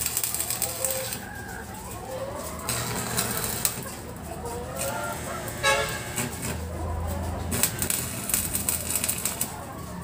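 Chickens clucking and calling in short, wavering calls, over stretches of crackling hiss that start and stop every few seconds.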